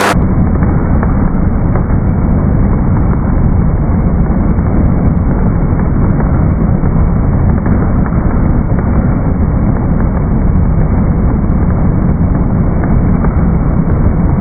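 Skating treadmill running under a skater, a loud, steady, muffled rumble.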